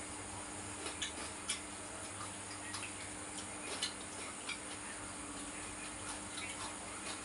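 Eating by hand: scattered, irregular small clicks and taps of chewing and fingers against plates, over a low steady hum.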